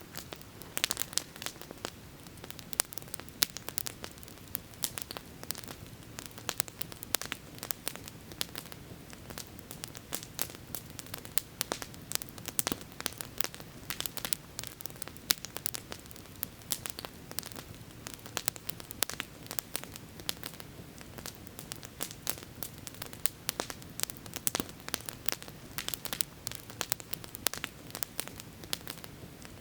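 Campfire crackling: many sharp pops and snaps of burning wood, several a second, over a steady low rush.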